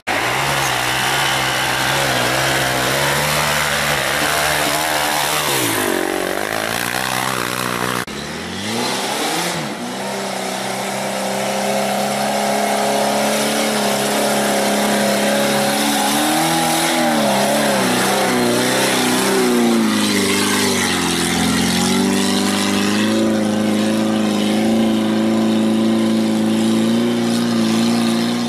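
Off-road engines revving hard under load on a steep dirt climb. First a quad's engine rises and falls in pitch. After an abrupt change about eight seconds in, a small Suzuki 4x4's engine pulls up the slope, its revs swinging up and down.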